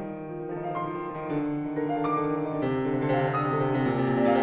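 Solo piano playing slow classical music, single notes entering about every half second and ringing on over one another, growing gradually louder.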